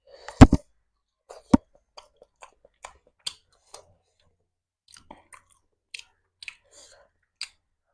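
Close-miked mouth sounds of a person eating a meal of curry and rice: chewing with small wet clicks and smacks. A sharp, loud sound comes about half a second in and another about a second and a half in.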